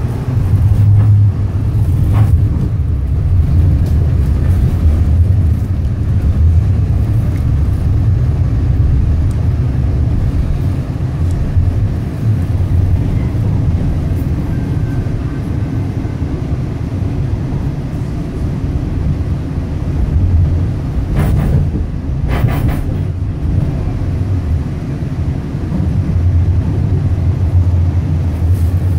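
Interior running noise of a Metro Transit Siemens S70 light-rail car under way: a steady low rumble, with a short run of knocks about three quarters of the way through.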